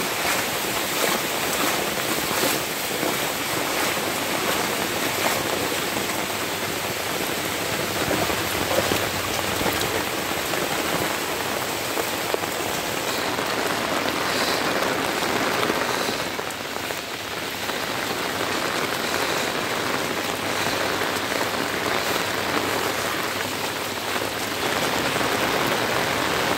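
Heavy rain pouring steadily onto shallow floodwater covering a road: a dense, even hiss of drops splashing on the water's surface.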